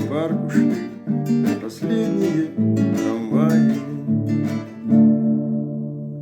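Music on a plucked string instrument, a run of picked notes and chords closing on a chord struck about five seconds in that rings on.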